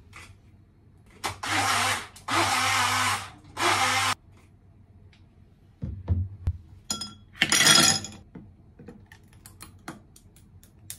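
Small portable bottle blender running in three short bursts, blending mango, yogurt and milk into a lassi. A brief loud clatter and a few clicks follow as the bottle is handled.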